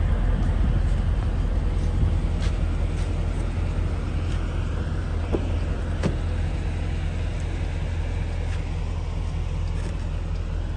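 The 5.7-litre Hemi V8 of a Dodge Durango R/T idling with a steady low rumble. A click of the driver's door handle and latch comes about six seconds in.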